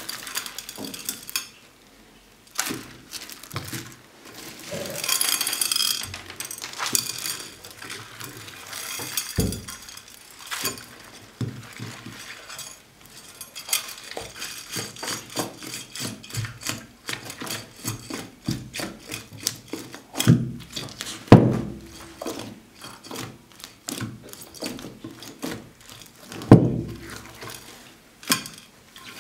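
Slime packed with beads, glitter and sequins being squeezed and pulled apart by hand in a glass dish: steady sticky crackling and clicking, with a few louder wet squelching pops, the biggest about 9 seconds in, twice around 20 to 21 seconds, and near the end.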